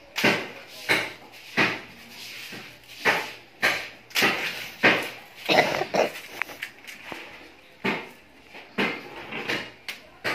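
A string of sharp knocks, uneven, about one to two a second: a hand tool striking and prying at the transformer coil and windings of a gutted arc-welding machine to get at its copper.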